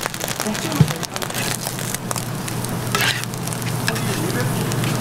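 Eggs, vegetables and ham slices sizzling on a flat griddle, with a metal spatula clicking and scraping against the plate. One sharp knock comes just under a second in.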